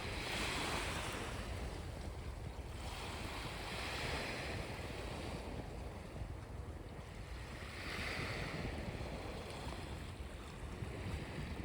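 Small waves breaking and washing onto the beach, three swells of surf about four seconds apart, over a steady low rumble of wind on the microphone.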